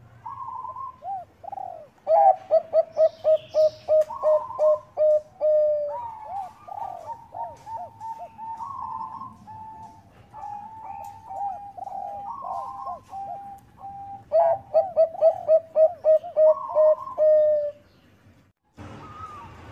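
Zebra dove (perkutut bangkok) cooing: two loud runs of short rapid coos, about three or four a second, with softer longer coos between them. The sound breaks off abruptly near the end.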